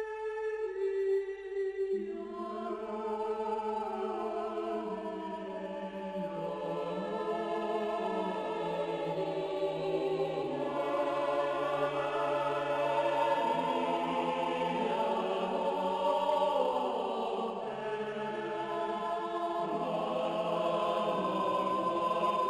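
Slow background music of sustained, choir-like chanted notes, growing fuller with lower notes coming in about two seconds in.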